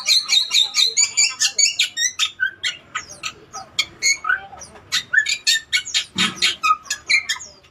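Bali myna calling: a rapid, unbroken run of short high chirps and whistled notes, several a second, with a few lower notes toward the end.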